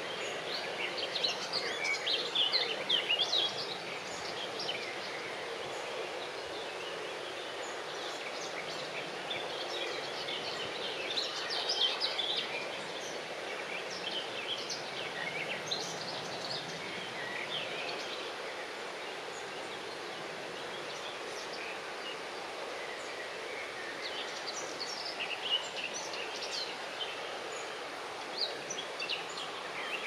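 Small birds singing in clusters of short, high chirps, most strongly about two seconds in and again around twelve seconds in, over a steady outdoor background hiss.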